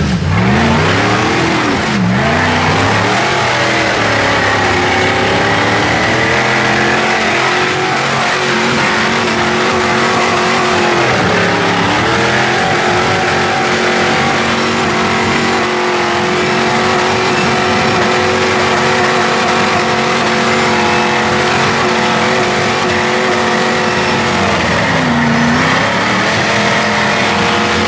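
Rock buggy's engine revving hard under load as it crawls up a rocky hill climb. The revs are held high and steady, with brief dips in pitch about two, twelve and twenty-five seconds in.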